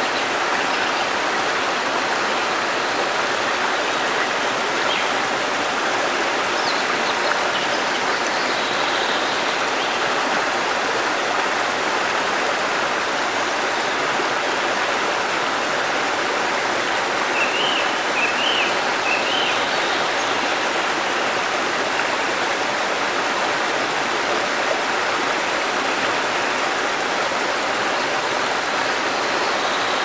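Shallow rocky stream rushing over boulders and spilling down small cascades, a steady, even water noise.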